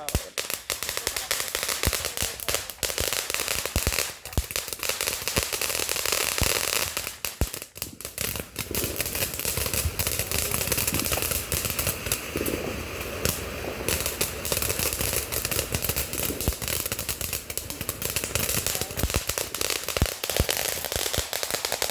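Ground-level firecrackers going off as a long, unbroken run of sharp pops and crackles, many a second, loud throughout.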